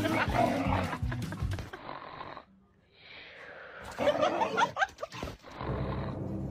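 Background music with a steady beat, which stops about two seconds in; after a short lull a husky gives several short gliding, howl-like cries about four to five seconds in.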